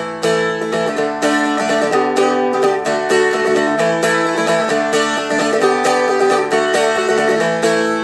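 Seagull Merlin M4, a four-string dulcimer-style guitar, strummed in a steady rhythm from the wrist, several strums a second, with the chord changing several times.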